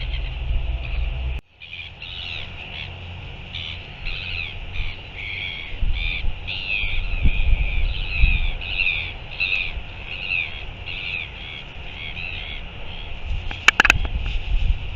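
Gulls calling in a rapid series of short, high squawks over wind rumble on the microphone, with a few sharp clicks near the end.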